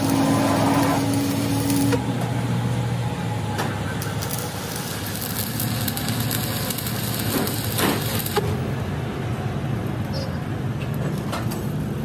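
Electric arc welding on a steel truck axle housing: a steady crackling hiss over a low hum. The hiss thins about eight seconds in, and a few short knocks follow.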